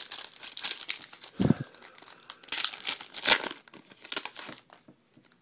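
A trading-card pack wrapper being torn open and crinkled by hand: a run of crackling, rustling tears with a dull thump about one and a half seconds in, stopping near the end.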